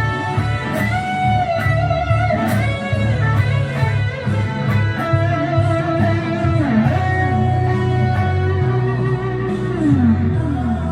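Electric guitar playing a solo of held notes with bends, over a bass guitar line and light drums.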